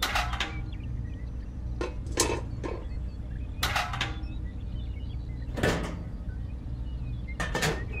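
Several light knocks and clinks as small tin toy buckets and a toy concrete mixer are set down on sand, over a steady low hum.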